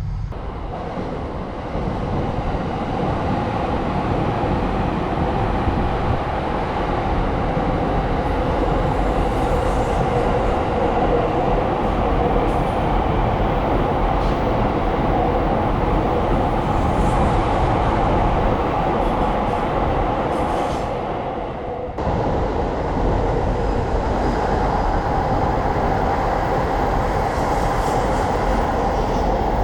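Electric trains running past on the tracks: a continuous rumble with a steady humming tone on top. About 21 seconds in it fades, breaks off sharply, then carries on.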